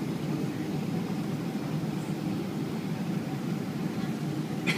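Steady low rumble inside the cabin of a Boeing 777-200 as it taxis: engine and airflow noise heard from a window seat over the wing.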